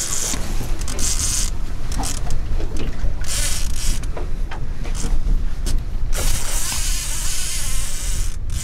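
Wind buffeting the microphone on an open boat, with the mechanical clicking and buzzing of a fishing reel as a hooked chinook salmon fights on a bent rod.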